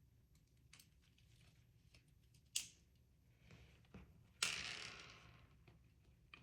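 Hard plastic parts of a 3D-printed toy pistol being handled and fitted together: scattered light clicks, a sharp click about two and a half seconds in, then a louder click at about four and a half seconds followed by a fading rattle lasting over a second.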